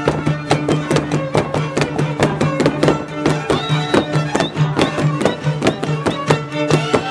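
Gyimes Csángó folk dance music: a fiddle playing the tune over a fast, even beat of struck strikes and a steady low drone, the typical fiddle-and-gardon accompaniment.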